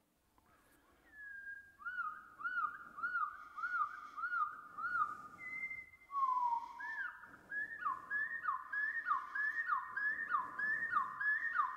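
Eurasian wren song played back over loudspeakers at a quarter of its speed, two octaves lower, so each note of the song can be heard separately. First comes a run of arched, rise-and-fall notes about two a second. After a brief break about halfway, there is a longer falling note, then a run of quick falling notes, again about two a second.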